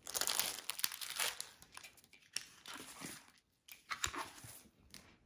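Plastic crinkling as a diamond painting canvas with its plastic cover film is handled and slid across a stone countertop, densest in the first second and a half, then a few softer rustles and a soft bump about four seconds in.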